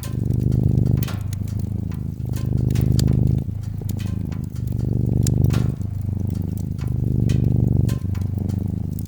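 A cat purring in a low, continuous rumble that swells and eases about every two and a half seconds, over the irregular snaps and crackles of a wood fire.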